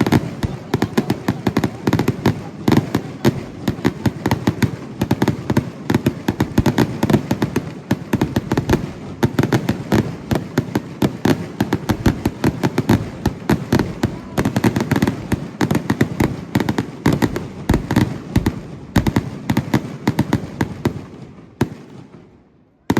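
A fireworks display going off in a rapid, continuous barrage of bangs and crackles, many bursts a second. It thins out and dies away near the end.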